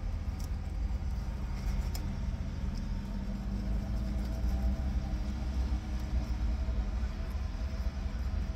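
A steady low rumble, with a few faint clinks of a knife and fork on a plate.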